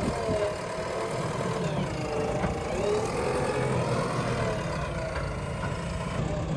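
Diesel engine of a backhoe loader (JCB) running steadily, with a whine whose pitch rises and falls as it works.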